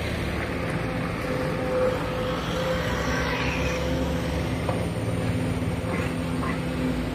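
Heavy diesel machinery running steadily while an excavator loads soil into a dump truck: a low engine hum with a steady whine over it.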